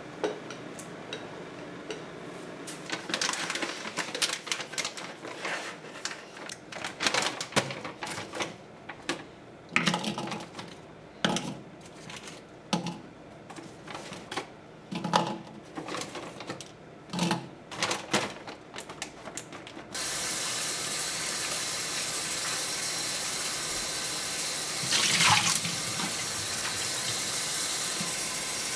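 Irregular crinkling and clicks from a plastic bag of raw shrimp being handled. About two-thirds of the way through, a kitchen faucet comes on and runs steadily into a small bowl of shrimp, with a brief louder splash a few seconds before the end.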